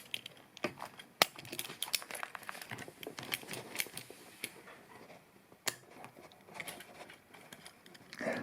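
Small scattered clicks and rustling from a wallet zipper being handled with locking pliers, the metal slider squeezed and the zipper worked to test it.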